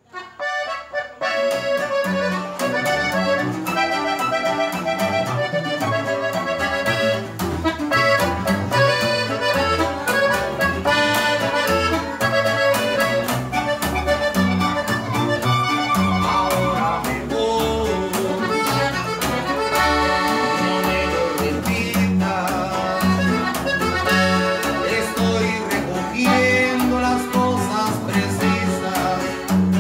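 Norteño music starting abruptly: a button accordion leads, backed by a strummed twelve-string guitar and a plucked upright bass (tololoche).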